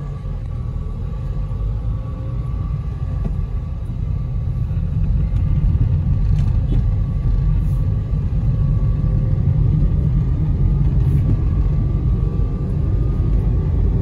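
Low rumble of a car on the move, heard from inside the cabin, growing louder over the first few seconds and then holding steady.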